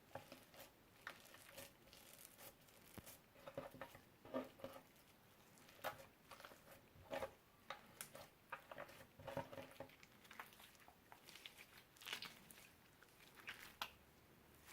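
Slime being kneaded and stretched by hand, with magic clay worked into it: faint, irregular sticky clicks, pops and crackles.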